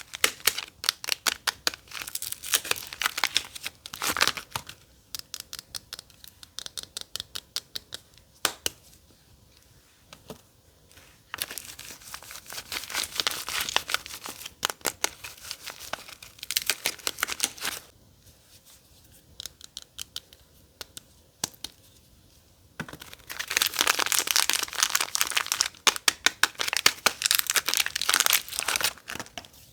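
Soap packaging being torn open and crinkled by hand: dense crackling and tearing in three stretches, with quieter pauses between them.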